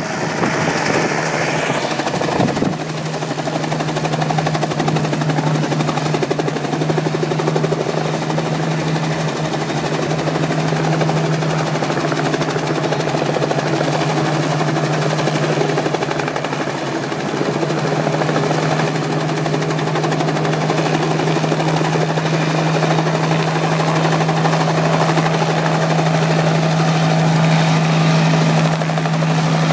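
Light bubble-canopy helicopter flying low and hovering close by: rapid chopping of the main rotor over a steady engine hum, which grows stronger about three seconds in.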